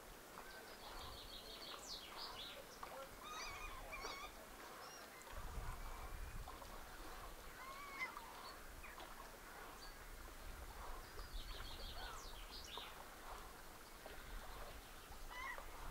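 Several birds calling and chirping, with a rapid high trill about a second in and again near the end. A low rumble joins in about a third of the way through.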